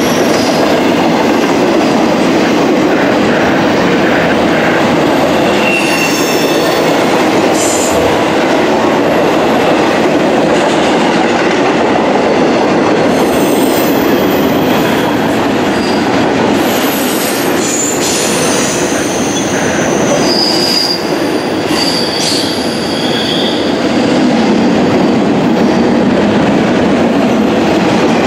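Double-stack intermodal freight train's well cars rolling past, with steady loud wheel-on-rail noise. Brief high-pitched wheel flange squeals come several times, about six seconds in and again in the second half.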